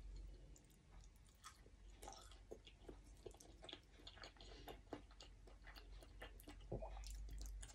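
Faint, close-up chewing of a mouthful of sticky rice with Isaan eggplant dip (soup makhuea): soft, irregular wet smacks and clicks of the mouth.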